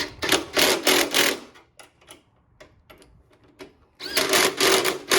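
A ratchet wrench with a 1/2-inch socket is spun to run bolts down, in two quick runs of rapid clicking: one at the start and one about four seconds in, with a few single clicks between.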